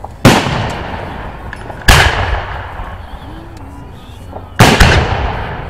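Three aerial firework shells bursting with sharp bangs, about a quarter second, two seconds and four and a half seconds in, each followed by a long rolling echo that slowly dies away.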